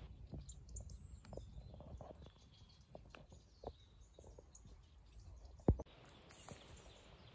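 Faint outdoor ambience of light footsteps and rustling on dry, grassy ground, with a few scattered bird chirps. One sharp thump stands out a little under six seconds in.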